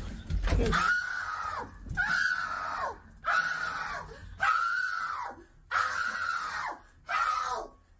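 A woman screaming over and over, six long high cries about a second apart, each falling in pitch as it ends. A few low thumps come just before the first scream.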